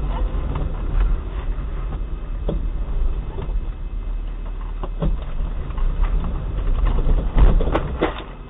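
Low, steady rumble of a car's cabin and engine picked up by a dashboard camera, with scattered knocks and rattles; the loudest knocks come near the end.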